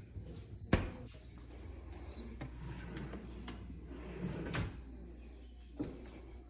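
Kitchen cabinet fronts being opened and closed, knocking: a sharp knock about a second in, then two more knocks later on.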